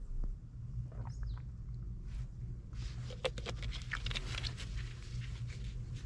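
A cat meows briefly about a second in, over a low rumble of wind buffeting the microphone. From about three seconds in, a second or two of rustling and clicking is the loudest sound.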